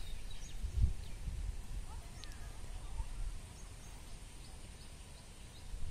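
Outdoor ambience: scattered faint bird chirps over an irregular low rumble, with a knock on the microphone about a second in.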